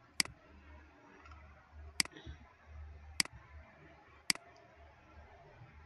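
Computer mouse clicking: four single, sharp clicks about a second apart, over a faint low hum.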